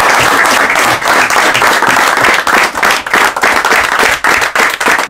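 A group of people applauding: a dense wash of clapping that thins after about a second into more distinct individual claps, then stops abruptly.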